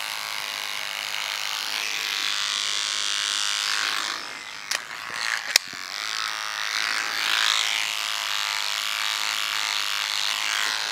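Cordless electric beard trimmer buzzing steadily as it cuts through beard hair along the jaw and cheek. About four seconds in it goes quieter for a couple of seconds, with two sharp clicks, then the buzzing comes back as the trimmer goes back to the cheek.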